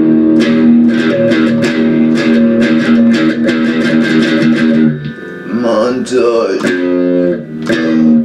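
Electric guitar strumming held rock chords. About five seconds in, the chords break off for a moment of bending, gliding notes, then the strumming comes back.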